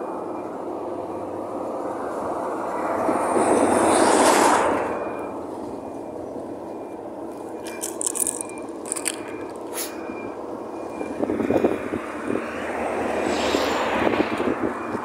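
Traffic passing on the street: a vehicle swells up and fades about four seconds in and another near the end, with a few sharp clicks in between.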